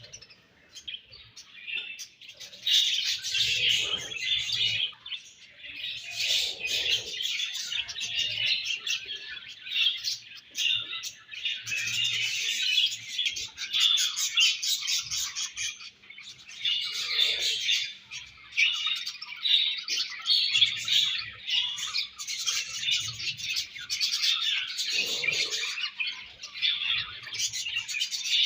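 A group of budgerigars chattering and chirping, with overlapping warbles and tweets.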